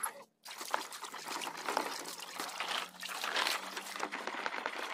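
Water splashing and trickling as hands scrub and rub a wet plastic toy dump truck, in uneven bursts. The sound cuts out briefly just after the start.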